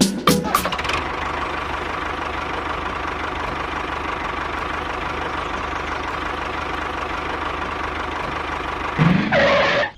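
Steady machine running noise like an idling engine, with a short rising sound near the end.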